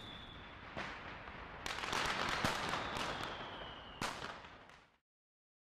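Fireworks going off: four sharp bangs over steady crackling, with a whistle gliding slowly down in pitch. The sound cuts off suddenly about five seconds in.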